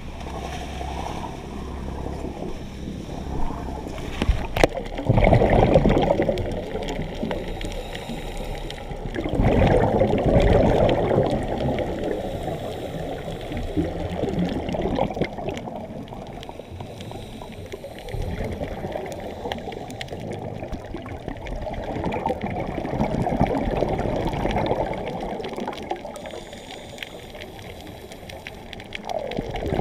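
Underwater breathing of scuba divers: bubbles from their regulators gurgle in swells every five to seven seconds over a steady watery rush.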